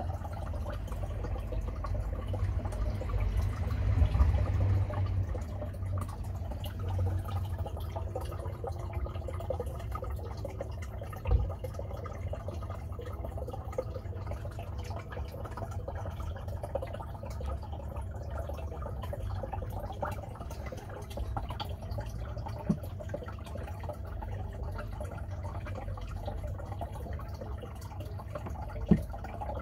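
Water trickling and dripping steadily in a turtle tank, over a low rumble. There are three short sharp taps, about eleven seconds in, again about twenty-three seconds in, and near the end.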